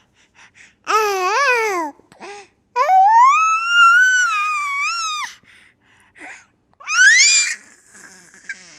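A baby squealing with laughter: high-pitched shrieks with a wavering pitch, the longest held for about two and a half seconds and rising, then a short rising squeal and breathy gasps near the end.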